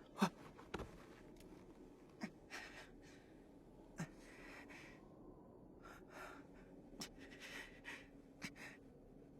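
Faint, scattered breaths and gasps from a person, with a few soft clicks here and there.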